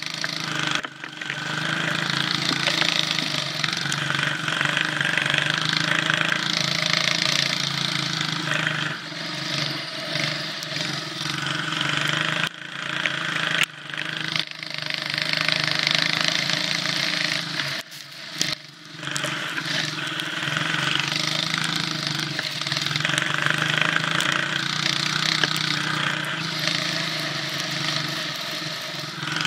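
Cyclekart's small engine running as the kart drives through snow, heard from on board, its pitch and loudness rising and easing as the driver speeds up and slows, dropping off briefly a few times.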